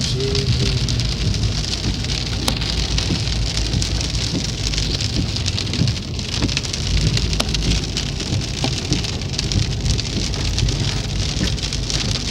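Steady heavy rain, an even hiss with a low rumble underneath and a few faint clicks.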